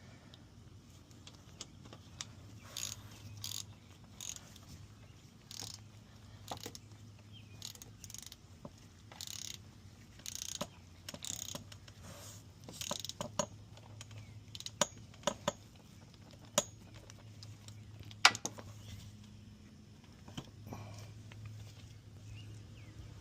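Ratchet wrench clicking in short, irregular runs as the oil drain plugs are tightened, over a low steady hum.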